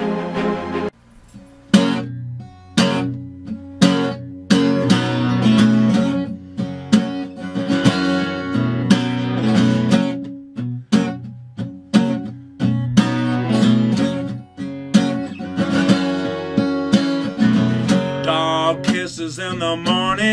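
Acoustic guitar strummed in a steady rhythm of chords, the intro of a song, with a man's singing voice coming in near the end. The first second holds a different piece of background music that stops abruptly.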